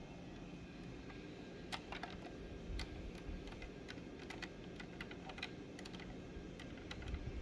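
A run of light, irregular clicks and taps from small hard objects being handled, starting about two seconds in and dying away near the end, over a steady low hum.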